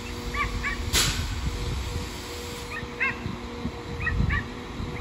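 Class 195 diesel multiple unit standing at the platform with a steady engine hum. Over it come short, high animal calls in pairs and threes, and there is one sharp knock about a second in.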